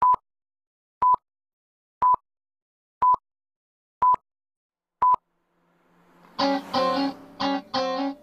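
Six short beeps at one steady pitch, one a second: the countdown beeps of an old film leader. About six seconds in, guitar music fades in and plays with a strong beat of chords.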